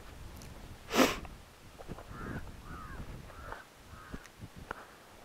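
A bird calling several times in short calls that rise and fall. About a second in comes a short, loud rush of noise, the loudest sound here, and a few faint steps on dry dirt follow.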